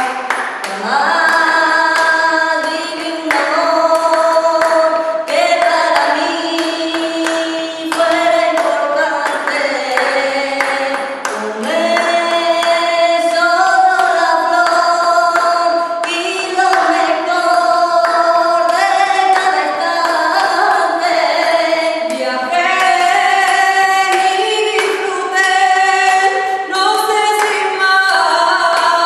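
Music with singing: several voices singing a melody together in harmony.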